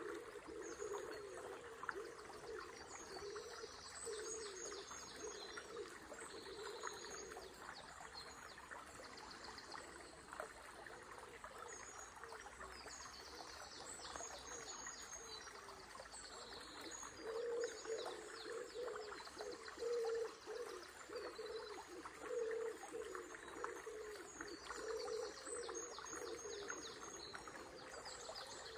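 River stream flowing steadily, with songbirds singing rapid, high trilling phrases every few seconds.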